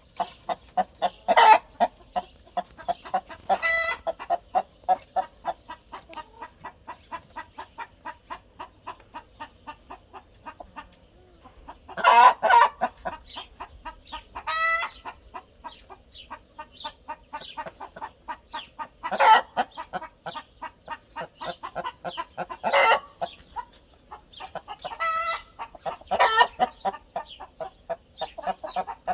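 A hen cackling: a steady run of short clucks, about three a second, broken every few seconds by a loud, drawn-out squawk.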